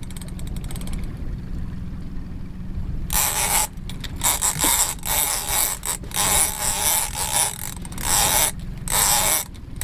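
Bluefin tuna busting at the surface close to the boat: a run of loud splashes, starting about three seconds in and repeating several times, over a steady low rumble.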